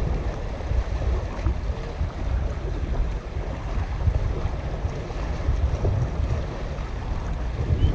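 Wind buffeting the microphone: a gusty low rumble that rises and falls.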